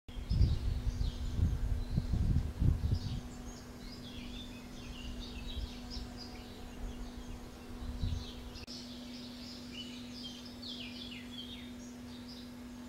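Small birds chirping and singing in the background: many short, quick notes, often falling in pitch, keep coming throughout. There is low rumbling during the first three seconds and briefly again about eight seconds in, over a faint steady low hum.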